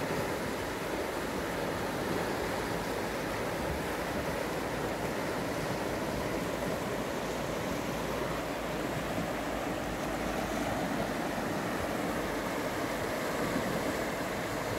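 Fast, shallow river rushing over rocks and riffles: a steady wash of water noise.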